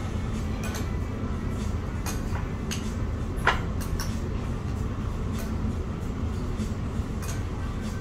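Restaurant dining-room background: a steady low rumble with scattered light clinks of tableware. One sharper clink comes about three and a half seconds in.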